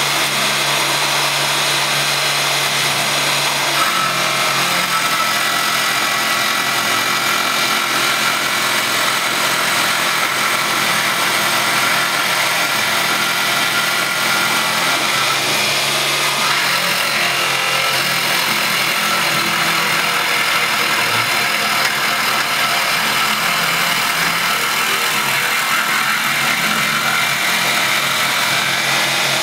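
Sieg X3 mini milling machine running steadily under CNC control, its spindle turning an end mill that is cutting a wooden block. The steady tones in the machine's sound shift in pitch about four seconds in and again around sixteen seconds in as the cut changes.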